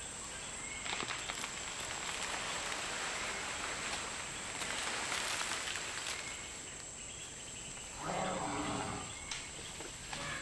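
Rainforest ambience with a steady high-pitched insect drone, and the rustle and crackle of a Bornean pygmy elephant moving through leafy undergrowth. A short animal call sounds about eight seconds in.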